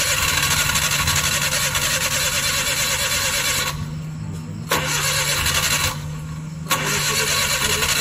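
Starter motor cranking a Suzuki K6a 658 cc three-cylinder engine in three long bursts with short pauses between, the engine turning over without catching: a hard start that the mechanic puts down to valve clearances.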